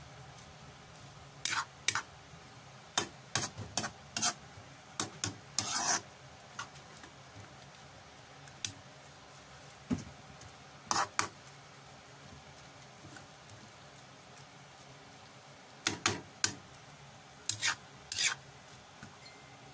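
Metal tongs scraping and clicking against a pan while tossing noodles and chopped greens. The sharp short strokes come in four groups, with quiet pauses between them.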